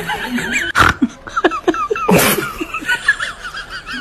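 Laughter, in short bursts, over a wavering high-pitched background sound, with a brief noisy burst about two seconds in.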